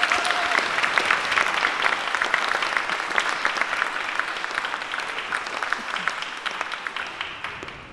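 Large audience applauding: dense clapping that breaks out right after the music stops and slowly dies away near the end.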